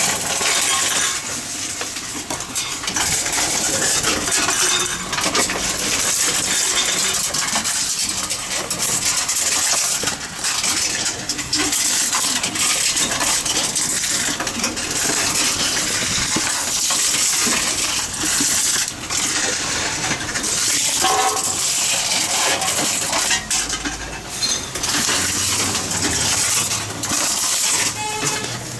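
Tomra T-63 reverse vending machine running as cans and plastic bottles are fed in one after another: a steady machine noise with repeated metallic clatter and knocks as the containers are carried in, sorted and dropped through.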